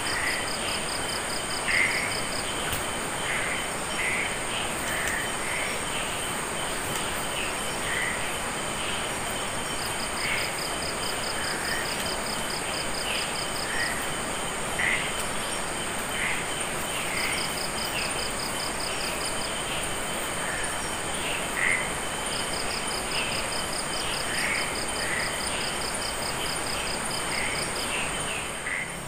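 Night insect chorus: a steady high-pitched insect drone, with four trains of rapid, evenly spaced cricket-like pulses lasting a couple of seconds each, and short chirps scattered throughout, over a steady hiss.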